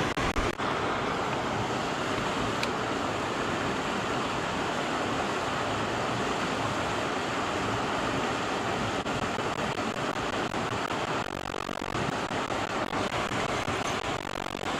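River water rushing steadily, an even hiss with no let-up.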